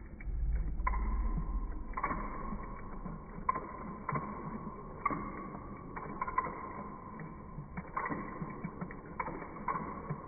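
Irregular clicks and creaks of handling, many with a short ring, heard through narrow, phone-like audio.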